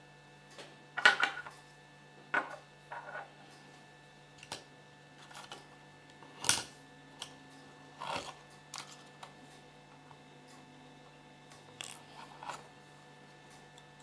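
Small hard plastic toy pieces being handled: scattered clicks and clacks at irregular intervals, the loudest about a second in and again near the middle, over a steady low hum.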